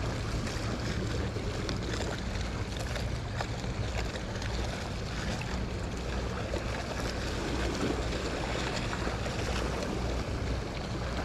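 Steady wind and lapping water with a low hum, over the soft turning of a spinning reel slowly retrieving a lure.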